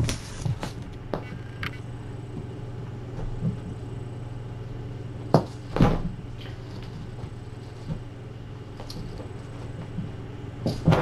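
A cat playing with a feather wand toy: scattered knocks and thumps, the loudest pair about five and a half seconds in, over a steady low hum.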